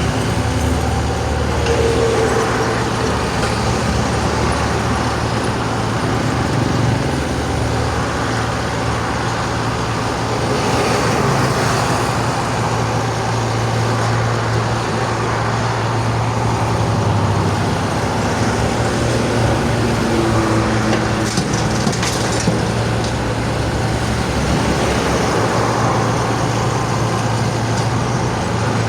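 Excavator's diesel engine running steadily as the machine works, its low note rising and falling now and then with the load, with a few faint clanks about three-quarters of the way in.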